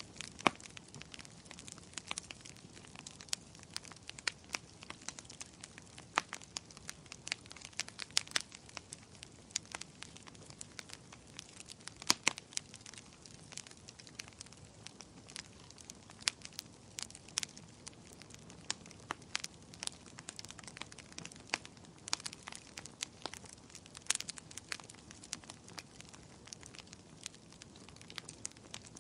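Wood fire burning, with a steady stream of sharp, irregular crackles and pops over a soft hiss.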